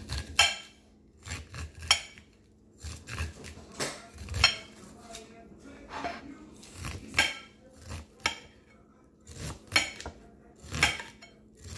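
Kitchen dishes and utensils knocking and clinking at irregular intervals, a sharp strike every half second to a second, some ringing briefly.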